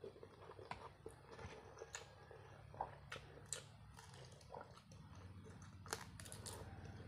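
Faint close-up eating sounds: wet chewing and slurping of pancit canton instant noodles, then bites into a piece of dried fish, with scattered sharp mouth clicks.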